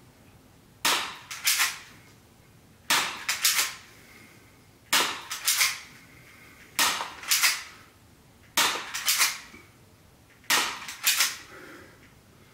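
Airsoft replica Walther P22 pistol being fired: six groups of three sharp cracks, one group about every two seconds.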